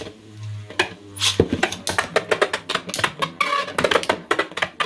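3D-printed plastic Beyblade spinning tops spinning and clashing in a stadium: fast, irregular clacks of plastic hitting plastic over a steady low spinning hum.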